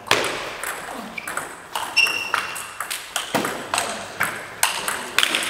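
Table tennis balls striking paddles and tables during rallies at two tables at once: an irregular run of sharp clicks, a few of them with a brief ring.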